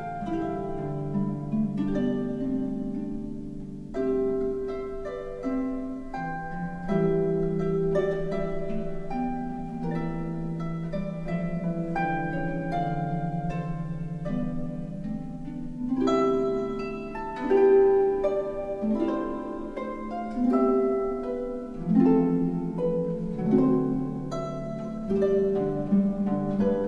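Instrumental background music: quick plucked, harp-like notes over held low notes.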